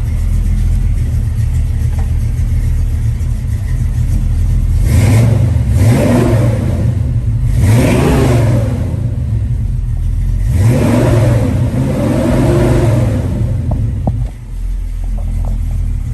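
Cammed LS V8 car engine idling with a choppy low rumble, revved up and back down three times, about five, eight and eleven seconds in.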